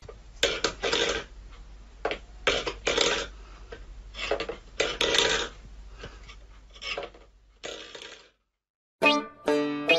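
Cat pawing at a metal food bowl on a wooden floor, the bowl clattering and scraping in irregular bursts. Music starts near the end.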